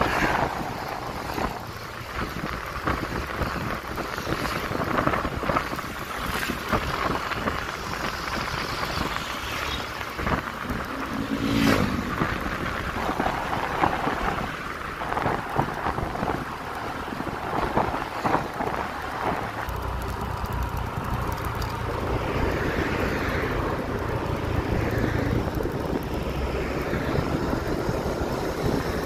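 Road traffic going past close by, with wind buffeting the microphone. A big bus passes right at the start, then trucks, cars and motorbikes go by one after another.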